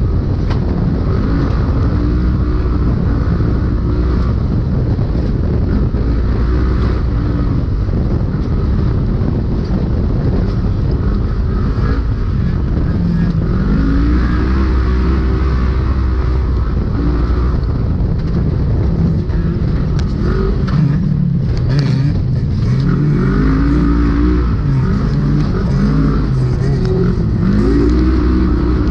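Polaris RZR UTV engine running hard at race pace, its pitch rising and falling again and again as the throttle comes on and off, heard from inside the cab. A few brief knocks come about two-thirds of the way through.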